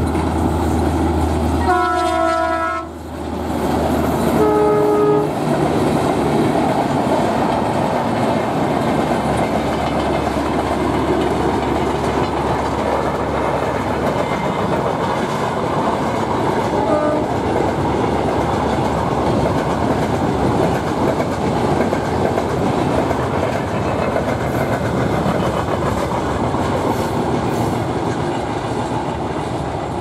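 WDP3A ALCO diesel locomotive sounding its horn as it passes, a long blast about two seconds in and a shorter one a couple of seconds later, over the engine's running drone, which fades after the first few seconds. A long rake of passenger coaches then rolls by with steady clickety-clack of wheels on rail joints, with one brief horn toot about halfway through.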